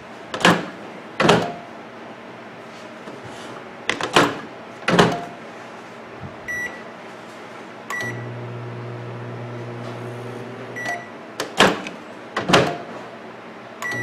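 Magic Chef microwave oven being tested after a door latch and spring replacement: the door latch clicks shut several times, then keypad beeps start the oven about eight seconds in and it runs with a steady hum. Near the end the door is opened and shut with two clicks, the hum stops, and after another beep the oven starts humming again.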